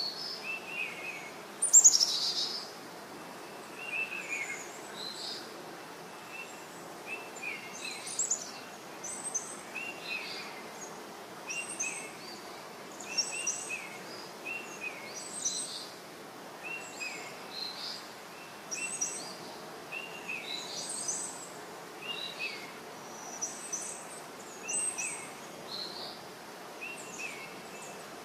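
Birds calling and chirping outdoors: short repeated chirps every second or two, with a louder, high, falling call about two seconds in, over a steady background hiss.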